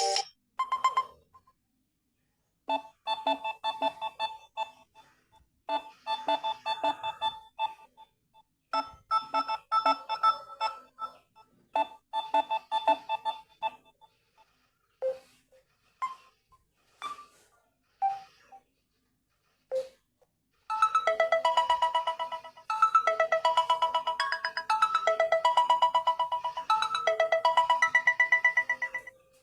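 Samsung Galaxy Tab A7 Lite ringtones playing in turn: a short electronic melody repeated several times with pauses between, a few single notes, then a denser melody with a fast pulse over the last third.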